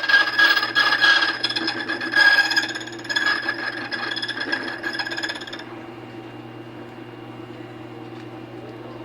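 Borkey key duplicating machine's cutter wheel grinding the 8th-generation copy of a Schlage brass key, with a ringing whine over the grinding. The grinding stops about five and a half seconds in, leaving the machine's steady motor hum.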